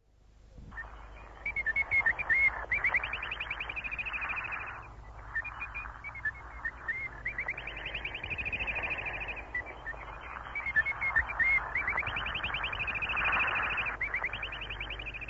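Birdsong interval signal of a shortwave broadcast station, received through a radio with static hiss underneath: the same chirping, trilling phrase fades in and repeats three times.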